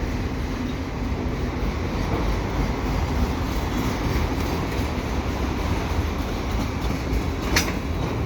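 Freight cars of a slow-moving freight train rolling past, with a steady rumble of wheels on rail. There is a single sharp clank about seven and a half seconds in.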